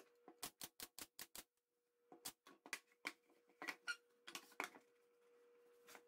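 Light wooden clicks and knocks as small wooden box pieces are handled and set down on a wooden tabletop: a quick run of taps in the first second and a half, then a pause and scattered knocks. A faint steady hum runs underneath.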